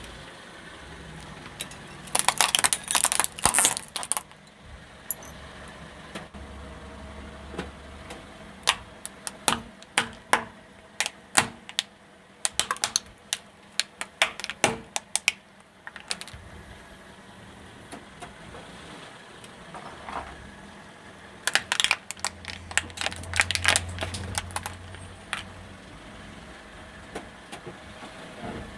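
A car tyre crushing brittle objects, a plastic toy pistol among them: three bursts of sharp cracking and snapping, over the low steady running of the car's engine.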